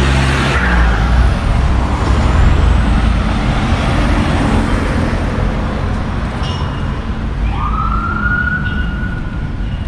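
Street traffic with a vehicle passing close near the start. About three quarters of the way in, a siren starts: its tone rises quickly and then holds at one pitch.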